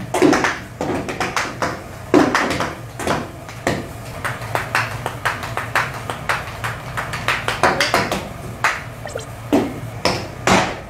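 Metal spatulas clacking and tapping in quick, irregular strokes on a steel teppanyaki griddle while food is chopped and tossed.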